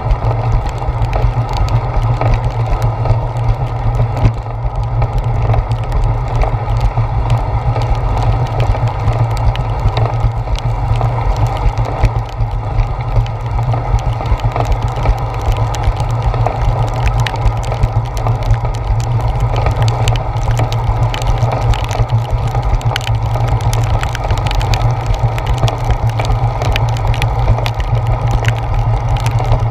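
Steady low rumble of a bicycle rolling over wet pavement in the rain, picked up through a handlebar-mounted GoPro Hero 4 in its waterproof housing, with many small ticks scattered throughout.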